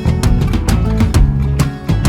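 Background music: a guitar-driven track with a steady, regular beat.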